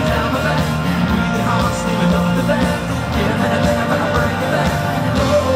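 Live rock band playing through a concert PA: electric guitars, bass and drums, with a male lead vocal.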